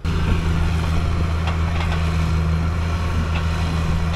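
Vehicle engine running at a steady speed: a loud, deep, unchanging hum.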